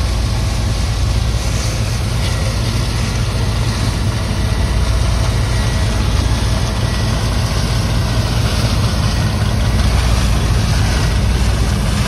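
John Deere 8820 combine harvesting soybeans close by: a steady, low diesel engine drone with the rushing noise of the machine's working parts over it, growing a little louder near the end as it draws nearer.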